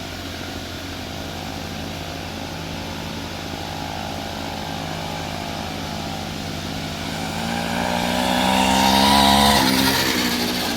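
Two-stroke Ural chainsaw engine powering a homemade motor-towing machine, running steadily. It grows louder and higher in pitch to a peak about nine seconds in, then drops in pitch and fades.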